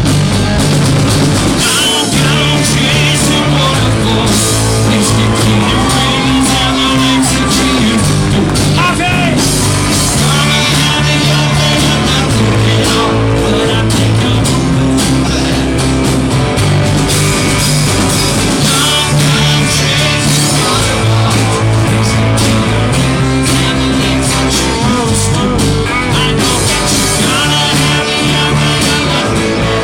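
Live rock band playing a loud instrumental passage: guitars over a bass line that moves to a new note every couple of seconds, with some bending guitar notes.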